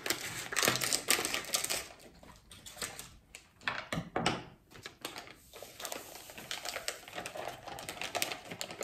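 Foil sachet snipped open with scissors, then crinkling with many quick, irregular clicks and rustles as it is handled and emptied into a glass bowl.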